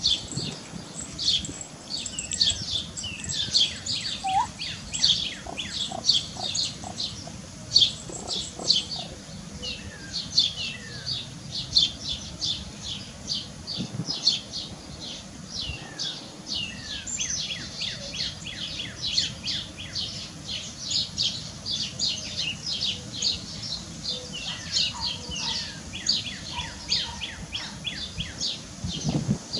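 Birds chirping steadily: a dense run of short, high, downward-sliding chirps, several a second, with a few lower chirps now and then.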